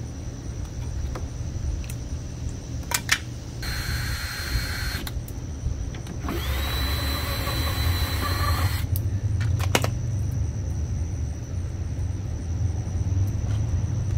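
Cordless drill with a 7 mm socket driving small screws out of a radiator and condenser assembly: a short run about four seconds in, then a longer run that spins up to a steady whine for about two and a half seconds. A few sharp clicks come just before and just after the runs, over a steady low rumble.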